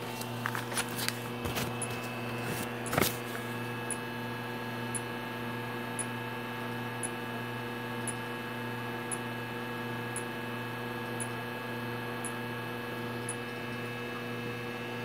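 Cutera Xeo laser running with a steady electrical hum while its Nd:YAG handpiece is test-fired onto paper, each pulse a short sharp tick, about one a second. A few louder clicks come in the first three seconds.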